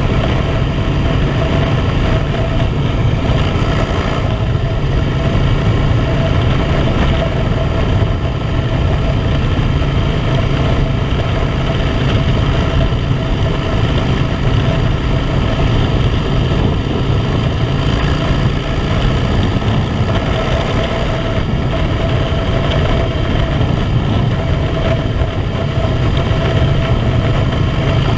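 Harley-Davidson motorcycle's V-twin engine running at a steady cruise under way, with a rush of wind and road noise over it.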